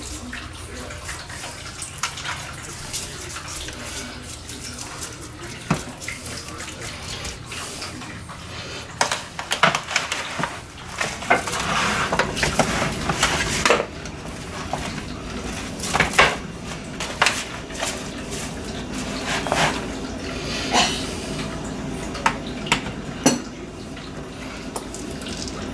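A disposable aluminium foil pan crinkling and rattling as raw pork rib racks are rubbed and turned over in it. Irregular crackles and handling noises run throughout, with a busier stretch a little before the middle and several sharp knocks in the second half as a rack is lifted and set back down.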